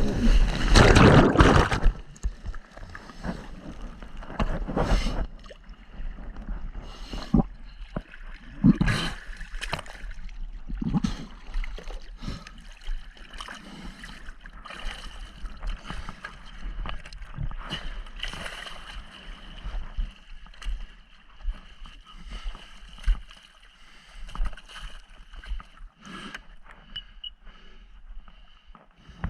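Sea-Doo Spark jet ski engine running loud for about the first two seconds, then dropping away. After that, water splashing and sloshing in irregular bursts, with a faint steady high whine underneath.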